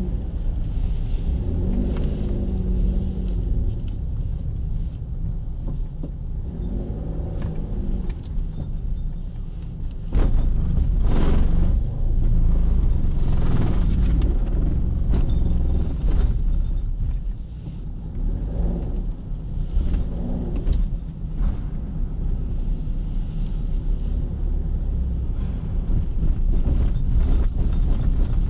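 Car driving slowly with a steady low rumble of engine and tyres, growing louder for several seconds about a third of the way in.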